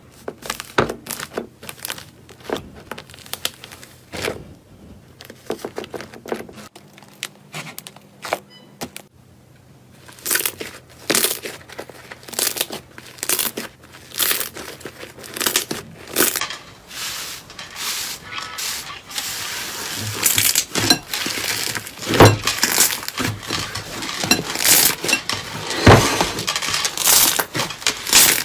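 Close-up crunching and crackling of a crunchy material being squeezed and pressed, a rapid run of sharp clicks. It is sparse at first and grows denser and louder in the second half.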